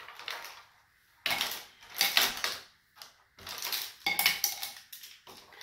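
Dried oregano rattling in a spice jar as it is shaken and tapped over a slow cooker crock, in several short bursts, the loudest about a second and a half in.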